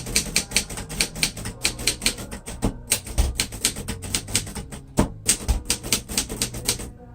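Rapid typing on a 1941 Royal Companion manual portable typewriter, its typebars striking the platen at about six keystrokes a second, with two short breaks in the rhythm.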